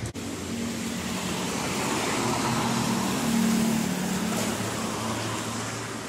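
A car passing by on the road: engine hum and road noise that grow louder to a peak a little past the middle, then fade.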